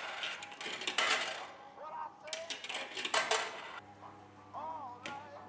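Coins being fed into the coin slot of a Maytag commercial washer, clicking and clinking through the coin mechanism in several rattling bursts. About four seconds in, a steady low hum comes in.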